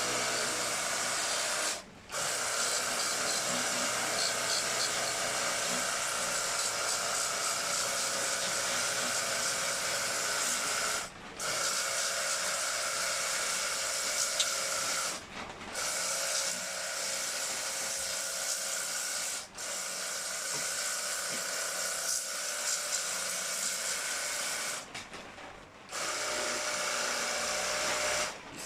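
Small electric pressure washer running, its pump whining steadily under the hiss of the water jet, stopping briefly about five times and starting again.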